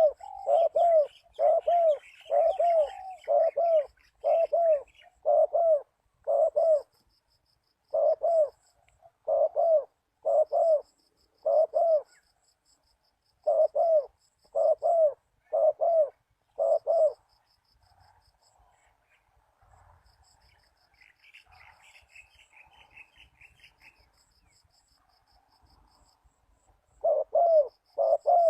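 Spotted dove cooing in runs of repeated short notes, stopping for about ten seconds after the middle and starting again near the end. A small bird twitters high over it at the start and again about two-thirds of the way through, with a faint, fast insect ticking.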